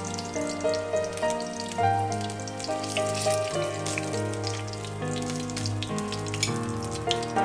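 Soft instrumental background music playing a slow melody over a steady bass, with water running from a tap and small clicks and splashes underneath.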